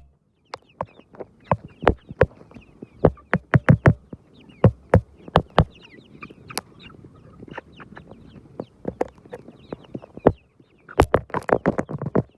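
Chickens clucking softly, with many short, sharp taps at an irregular pace that grow denser near the end.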